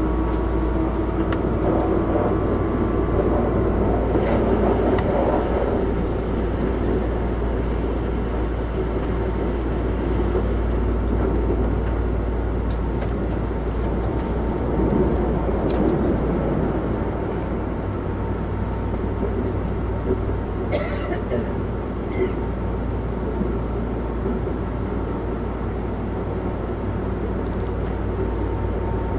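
Osaka Metro 66 series subway train running slowly, heard from inside the car: a steady rumble of wheels and motors, with a faint whine near the start and a few short squeaks and clicks about two-thirds of the way through.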